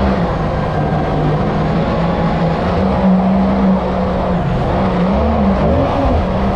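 Yamaha MR-1 1.1-litre four-cylinder four-stroke jet-ski engine driving a MotoJet 115 mini jet boat, running hard with its pitch rising and falling as the throttle is worked. Water rushes and sprays around the hull.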